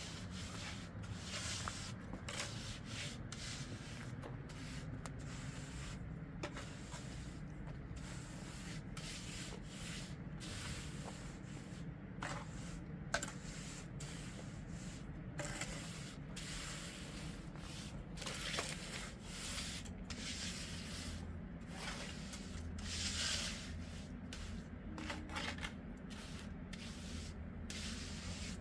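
Irregular scraping or rubbing strokes, one after another at an uneven pace, over a low steady hum.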